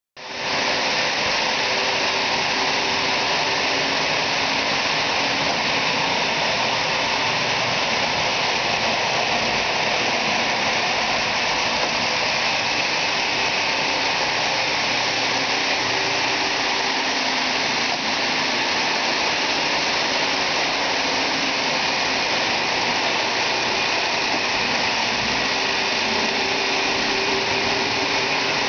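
Lionel O-gauge 4-4-2 steam locomotive and its passenger cars running on three-rail track, a steady rushing rumble of wheels and motor, with a faint whine that swells and fades.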